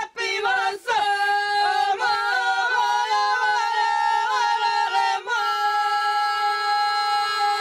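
A small group of women singing an ojkavica, a traditional unaccompanied folk song, in two parts. The voices waver through short ornaments, then hold one long note from about five seconds in.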